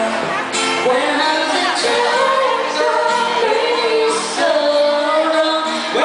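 A live pop band plays a song while a female lead voice sings the melody.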